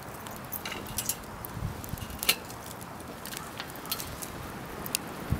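Scattered sharp crackling pops from a wood fire's embers and the buttered bread frying in a cast iron skillet.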